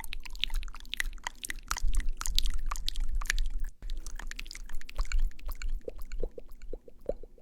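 Close-miked ASMR sound effects for lipstick application: a dense run of small crisp clicks and sticky crackles, with a brief break just before the middle and lower, softer pops near the end.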